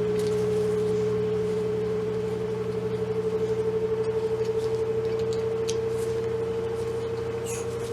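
A steady electrical-sounding hum holding one pitch, slightly wavering, over a fainter lower hum, with a few faint small clicks in the second half.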